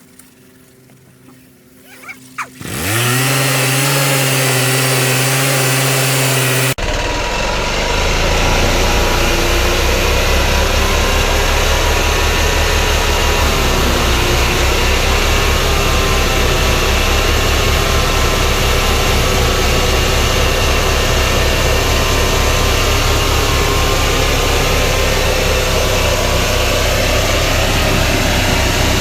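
Homemade sawmill's golf-cart gasoline engine starting, its pitch rising as it comes up to speed about three seconds in, then running steadily. The sound changes abruptly a few seconds later and continues as a steady low, rhythmic engine note.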